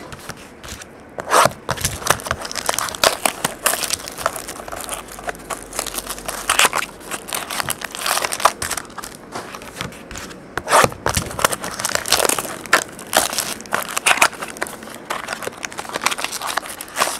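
Plastic shrink-wrap and a foil card pack from a Topps Triple Threads baseball card box crinkling and being torn open by hand, in irregular crackles with several louder rustles.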